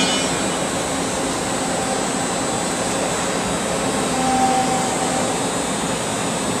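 Steady noise of industrial machinery running in the background, with a short metallic clink of tools just as it begins.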